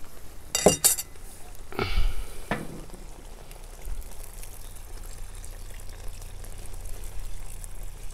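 A few clinks and knocks, then water poured from a glass carafe onto simmering rice in a cast-iron kazan. The pour runs as a soft steady splash through the second half, topping up the rice's cooking water.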